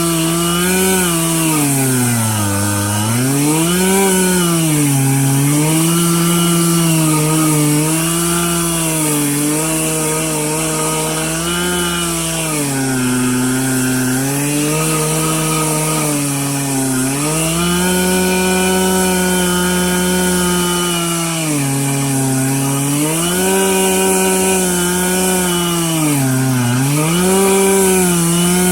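Stihl MS 441 C-M Magnum two-stroke chainsaw running under load as it mills a red oak log lengthwise. The engine pitch sags and recovers again and again, every couple of seconds, then holds steady for a few seconds past the middle.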